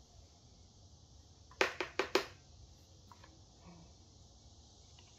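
Plastic housing of an electric leaf blower knocking as it is handled: four quick sharp knocks within about half a second, a little over a second and a half in, then a few faint clicks.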